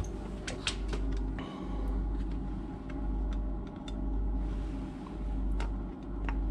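Light metallic clicks of a screwdriver working the screws of a marine generator's seawater impeller pump cover, over a steady low engine-room machinery hum.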